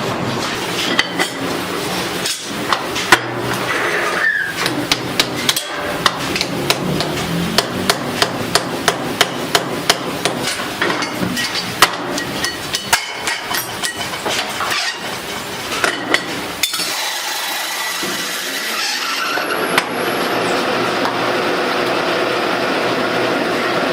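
Repeated sharp hammer blows on metal, quick and uneven, during ceiling-fan part making. About two-thirds of the way in, the hammering gives way to a steady running machine noise.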